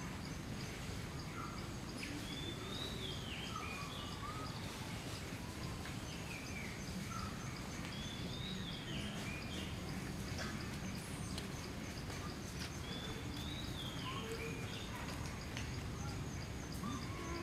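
Outdoor ambience with a steady low background noise, over which a bird repeats a short whistled phrase that rises and falls, three or four times, a few seconds apart.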